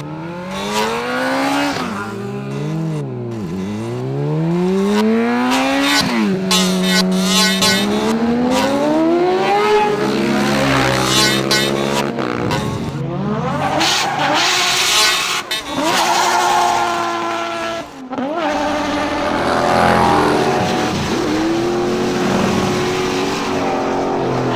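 Added sound effects of car engines revving up and down over and over, with tyre squeal. The engine pitch rises and falls every second or two, with several abrupt cuts between effects.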